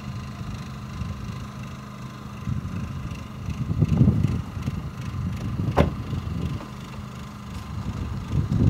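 Wind buffeting the microphone: a low rumble that swells and fades in gusts, with one sharp click about two-thirds of the way through.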